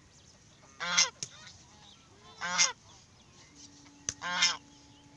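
Domestic geese honking: three loud honks, about one and a half seconds apart.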